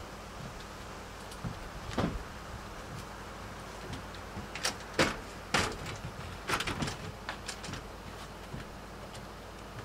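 Knocks and clatters of a screen door and its fittings being handled. One knock comes about two seconds in, then a busier irregular run of clunks between about five and eight seconds in.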